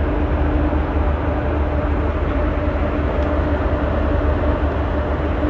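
Steady low drone of a passenger ferry's engines and machinery heard on board, with a constant hum running over a deep rumble.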